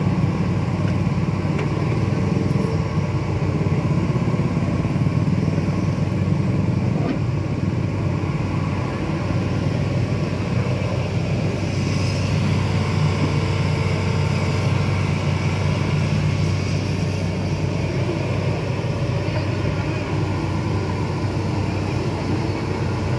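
Hitachi Zaxis 210 excavator's diesel engine running steadily while the boom and bucket are worked, a continuous low drone.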